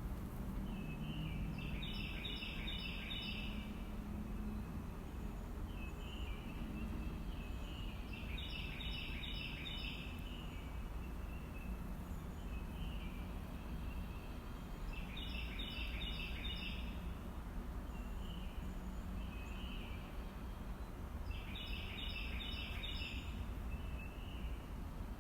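A songbird repeating the same short phrase of rapid notes four times, about every six seconds, with fainter single calls in between, over a steady low background rumble.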